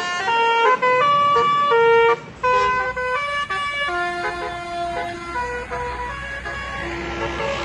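Basuri multi-tone 'telolet' bus horn playing a quick melody of stepped notes, with a brief break a little after two seconds. The notes grow fainter over the last few seconds over a low engine rumble.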